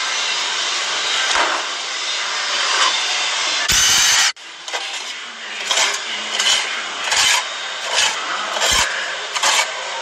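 Brush scrubbing rust off a furnace's burner tubes in repeated scraping strokes, about one or two a second, in the second half. Before that there is a steady rough scraping noise, cut by a short loud burst near the middle.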